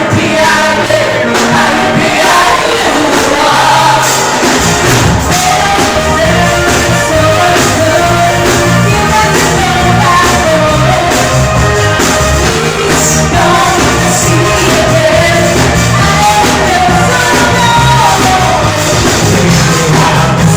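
Loud club music with a singer; a heavy bass line comes in about four seconds in.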